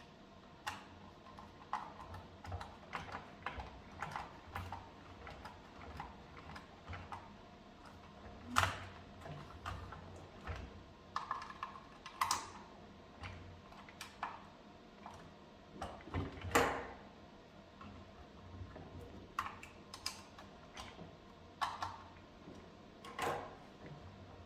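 Irregular small clicks, taps and knocks of hard plastic and small parts being handled during disassembly, with a few louder knocks, the loudest about two thirds of the way in.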